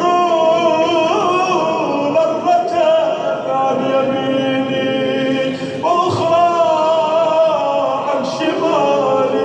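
A man's voice chanting a supplication in long, drawn-out melodic phrases with no instruments: two sustained phrases, the second beginning about six seconds in.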